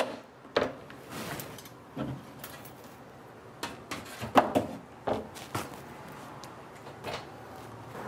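Knocks, clacks and rattles of a wooden-framed window being pushed open and of jars and things on its sill being handled, the loudest knock about four and a half seconds in.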